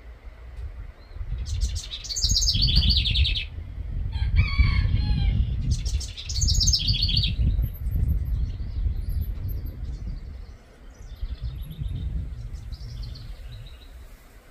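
Songbirds singing: two bursts of fast repeated high notes, about two seconds in and again about six seconds in, with a lower call between them and fainter calls later. A low, uneven rumble runs under most of it and is louder than the birdsong.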